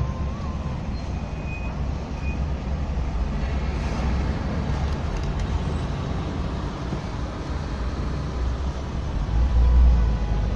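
Slow-moving road traffic dominated by heavy trucks: a steady low engine rumble that swells briefly near the end.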